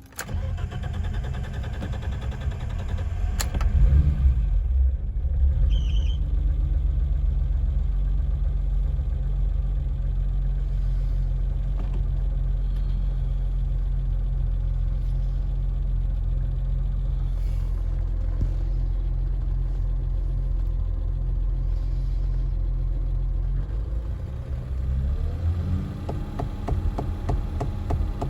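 BMW E30 engine starting up, rising briefly about four seconds in, then running at a steady speed before revving up near the end. This engine has a slow knock that comes in around 2,000 rpm and clears above 2,500 rpm, which was traced to slightly-off timing.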